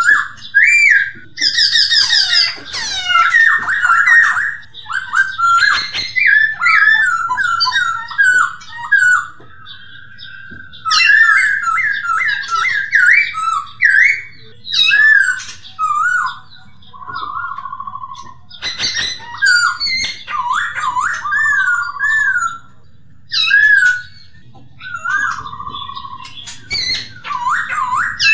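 Hong Kong poksay, a laughingthrush, singing a long, varied song of loud whistled phrases that slide up and down, broken by quick chattering notes and short pauses. A faint low hum runs underneath.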